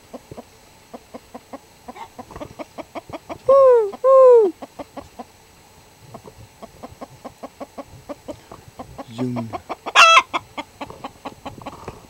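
Chickens clucking, a quick run of short clucks that grows busier, broken by two loud drawn-out squawks about three and a half seconds in and a sharp, high squawk about ten seconds in.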